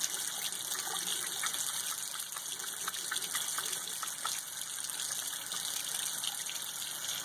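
Tap water running steadily into a sink while a bar of lard-based baby soap is worked between wet hands, with faint wet ticks from the hands.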